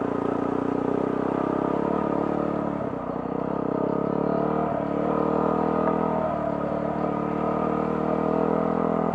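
Yamaha WR250R's single-cylinder four-stroke engine running at a steady throttle while the motorcycle rides through shallow floodwater, with water splashing under the front wheel.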